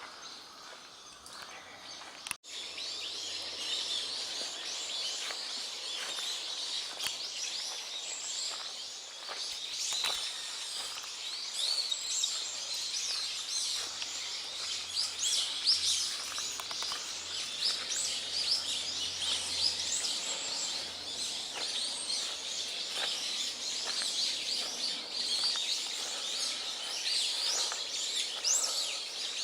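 Many small birds chirping and calling at once in a dense, high-pitched chorus, which starts abruptly about two seconds in after a brief dropout and carries on unbroken.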